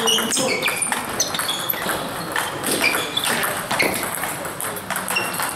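Table tennis balls clicking irregularly off bats and tables from more than one table in play, mixed with short high squeaks of shoes on the sports floor.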